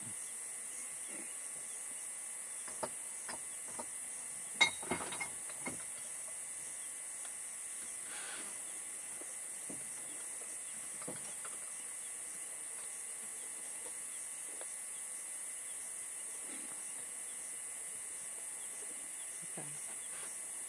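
Steady high-pitched recording hiss, with a few short faint clicks and knocks about three to six seconds in, the loudest just under five seconds in.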